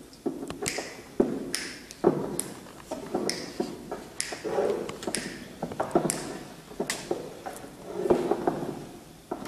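Flamenco footwork: shoes striking the stage, with strong sharp strikes about once a second and lighter taps and thuds between, unaccompanied by guitar or singing.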